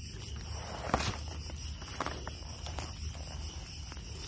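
Footsteps and rustling in dry leaf litter and twigs, with scattered crackles and a sharp snap about a second in.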